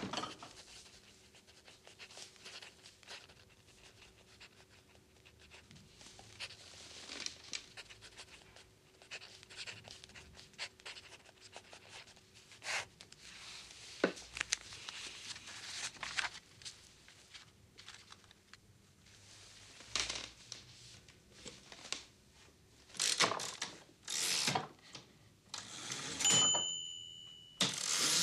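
Small handling sounds at a desk: a pen scratching on paper with scattered light clicks and scrapes. Near the end come several louder scraping and clicking noises from a small metal mechanism being fiddled with, and a high tone held for a second or so.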